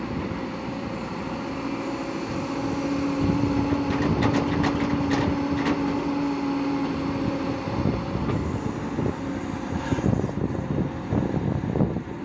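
Diesel engine of a Hyundai 140 crawler excavator working under load, with a steady whine held for several seconds as the bucket dumps and swings. Knocks and rattles come in the middle and again near the end.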